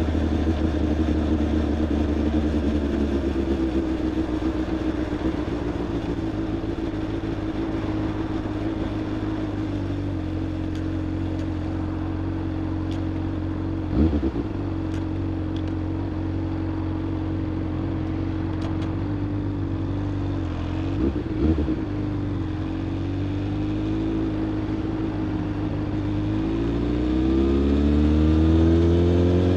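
Honda Hornet 600's inline-four engine heard from the bike while riding at a steady cruise. There is a short thump about halfway through and two more a few seconds later. Near the end the engine pitch rises and grows louder as the bike accelerates.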